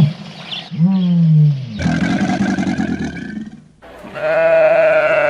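A run of separate farm-animal calls. There is a short arched call right at the start and another about a second in, then a longer, rougher call. The last is a long bleat with a wavering tone, starting about four seconds in.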